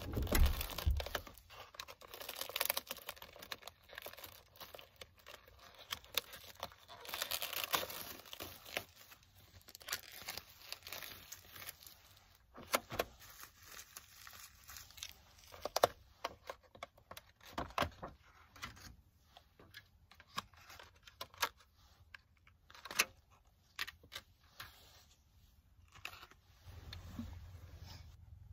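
Thin plastic takeout container being handled and opened: the clear lid and packaging crinkle and crackle, with some tearing. This is followed by scattered sharp clicks and taps of the plastic.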